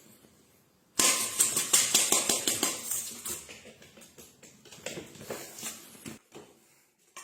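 A rapid clatter of small knocks and rattles starting about a second in, loudest at first, then thinning out and stopping near the end.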